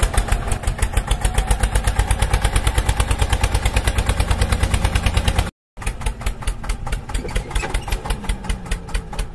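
Tractor engine running at idle with a fast, even chug, about nine beats a second. It cuts out for a moment about five and a half seconds in and picks up again a little quieter.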